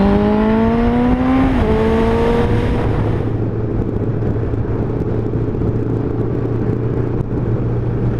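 Motorcycle engine revving up under acceleration, with a gear change about one and a half seconds in and a shorter pull after it, then running steadily at cruising speed under a constant rush of wind and road noise.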